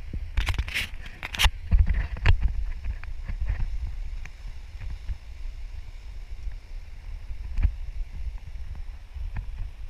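Wind rumbling on the microphone, with a quick cluster of knocks and clicks in the first couple of seconds and a single knock later.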